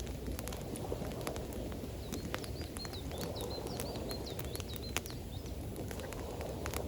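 Campfire crackling with scattered sharp pops over a steady low rush of water. About two seconds in, a bird gives a quick series of short high chirps lasting about two seconds.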